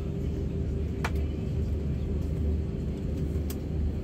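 Cabin noise of an Airbus A321-231 taxiing, heard from a window seat: a steady low rumble of its IAE V2500 engines at idle and the wheels on the taxiway, with a steady hum. Two brief clicks sound, one about a second in and one near the end.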